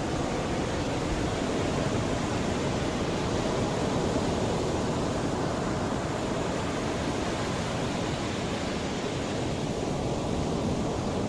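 Mediterranean sea waves washing onto the shore: a continuous low rush that swells gently for a few seconds and then eases.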